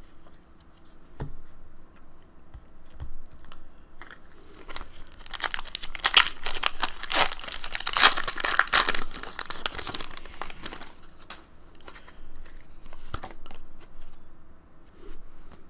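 Foil Pokémon card booster pack crinkling and being torn open by hand. The crackling and ripping is loudest from about five to ten seconds in, with quieter rustling and handling of the cards after it.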